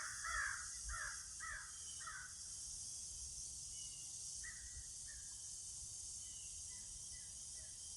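Crows cawing: a quick run of about six caws in the first two seconds, then fainter caws near the middle and again toward the end.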